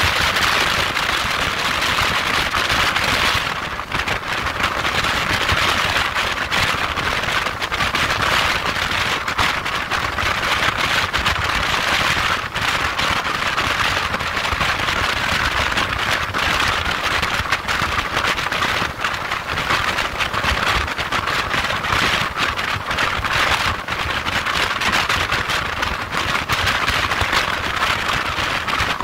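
Wind rushing over and buffeting the microphone of a motorcycle at motorway speed: a steady, loud hiss with constant crackling, the engine and tyres buried underneath.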